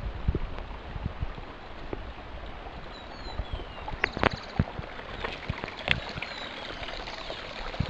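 Running water, a steady rushing hiss, with a few sharp clicks and several short, high falling chirps from about the middle on.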